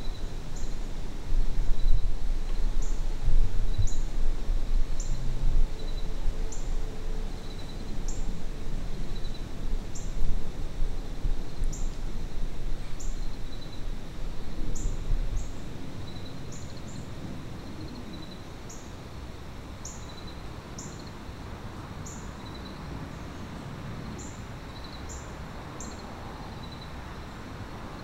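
Outdoor woodland ambience: short, high-pitched chirps repeat about once a second over a fainter, steady run of lower chirps. A low rumble during the first half fades out about halfway through.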